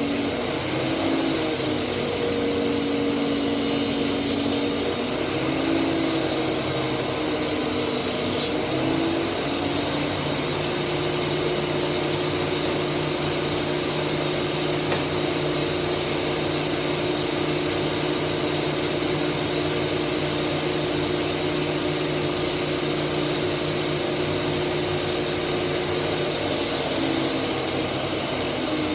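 Grizzly G0959 12-inch helical-head planer jointer running together with a 1.5 hp dust collector: a loud, steady machine noise with a high whine. The whine shifts pitch several times, rising about a third of the way in and falling back near the end.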